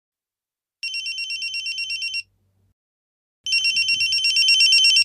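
Electronic telephone ringing twice, each ring a rapid warbling trill about a second and a half long. The second ring is louder and cuts off abruptly near the end as the call is answered.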